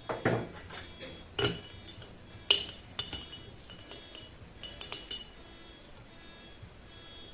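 A utensil clinking against a glass jar in a series of taps, each with a short glassy ring, as chopped onion is put in. The loudest tap comes about two and a half seconds in, and the taps stop after about five seconds.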